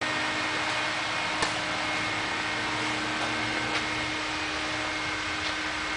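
A steady machine hum with a faint high whine and hiss, and a few light clicks.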